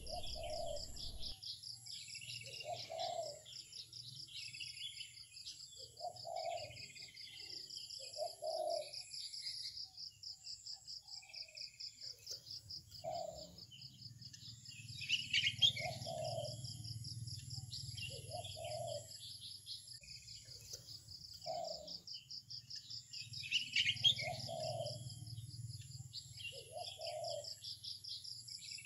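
Birds chirping, with an insect's rapid pulsing trill throughout and a short low call repeating every two to three seconds.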